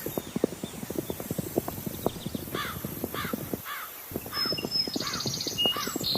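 Hooves clattering unevenly on a hard surface, with a bird cawing about six times in a row, starting about two and a half seconds in.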